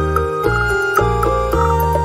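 Instrumental background music: a melody of held notes over sustained low chords that change every half second or so.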